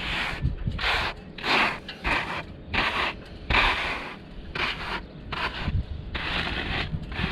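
A plastic scoop scraping and scooping through loose dry sand, spread over a painted deck for an anti-slip finish. It comes as about ten short, hissing scrapes, roughly one every half second to a second.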